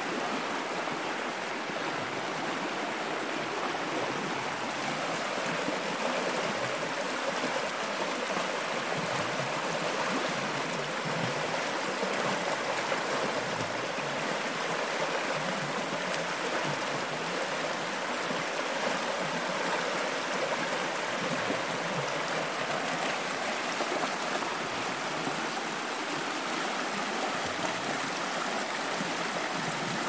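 A shallow river running fast over stones in a riffle, making a steady, even babbling rush of water.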